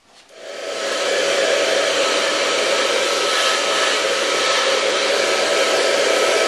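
Handheld blow dryer switched on about half a second in, spinning up over about a second, then running steadily with an even rushing hiss and a faint whine.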